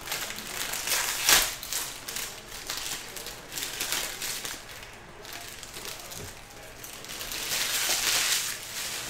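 Foil trading-card pack wrappers being torn open and crumpled by hand, a crackling crinkle that is loudest about a second in and again near the end.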